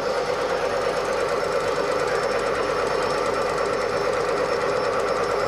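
Rotary axis drive of a CNC column milling machine running on its own without the spindle: a steady mechanical whir with a fast, even rattle.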